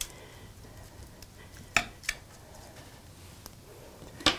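A kitchen utensil tapping and clicking against a nonstick frying pan as strips of dried beef are stirred: a few sharp taps spread out with quiet between them, the loudest one near the end.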